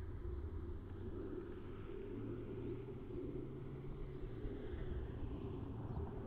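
A car driving on a road, heard as a steady low rumble.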